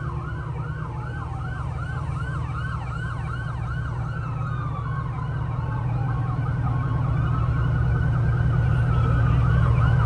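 Emergency vehicle siren in a fast yelp, about three rising-and-falling sweeps a second, with a second, slower siren tone falling behind it. Under it runs a heavy vehicle engine's low rumble that grows louder toward the end.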